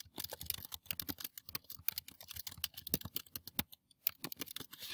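Typing on a computer keyboard: a quick, irregular run of keystrokes with a short pause near the end.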